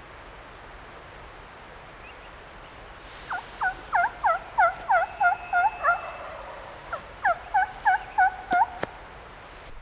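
Hen turkey yelps from a hunter's turkey call: two runs of evenly spaced yelps at about three a second, nine in the first and six in the second, with two sharp clicks at the end.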